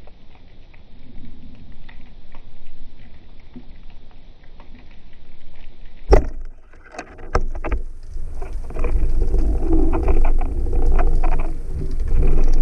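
Underwater: faint crackling and clicking of the sea, then about six seconds in a single sharp crack as a band-powered speargun fires its shaft at an Atlantic bonito. It is followed by a few more clicks and then louder churning water noise and rattling, heard close to the microphone.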